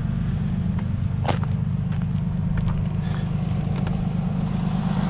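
Tow truck engine running steadily while it drives the winch pulling a stranded SUV out of a ditch, with a single sharp click a little over a second in.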